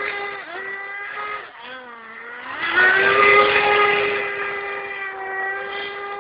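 CMB RS45 radio-controlled racing boat's two-stroke engine running at high revs with a high-pitched whine. The pitch sags briefly about one and a half seconds in, then rises sharply as the throttle opens, loudest about three seconds in, and holds steady.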